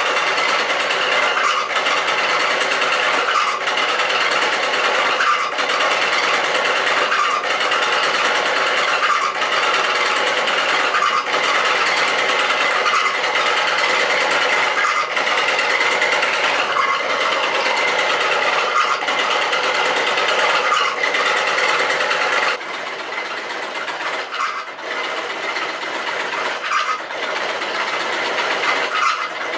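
Gear and disc mechanism of Timchenko's electrotachyscope, an early motion-picture apparatus, running with a steady mechanical whirring clatter. It turns quieter about three-quarters of the way through.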